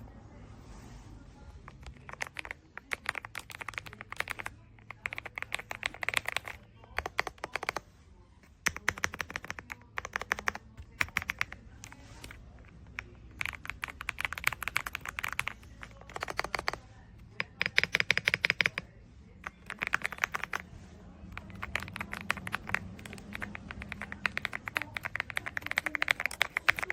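Typing on an AULA S98 Pro gasket-mounted mechanical keyboard: rapid runs of keystroke clicks in bursts of a few seconds, broken by short pauses.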